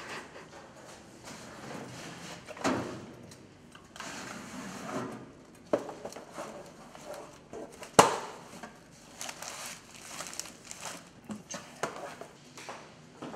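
Ring binders being handled in a metal shelving cabinet: rustling and scraping with a few sharp knocks, the loudest about eight seconds in.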